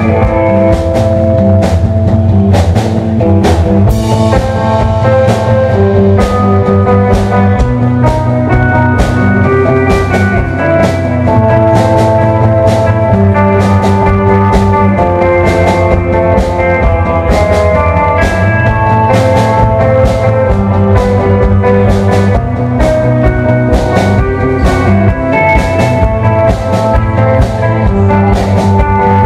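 Live instrumental rock from a small band: electric guitar and a drum kit playing loud, with held guitar notes over a steady drum beat and no singing.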